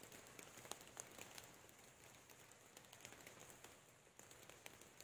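Light rain falling on forest foliage: a faint, soft hiss with many scattered drops tapping on leaves.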